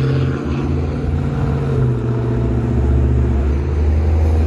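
A car's stereo playing loud, bass-heavy music, its deep bass notes stepping lower every second or two, over street traffic noise.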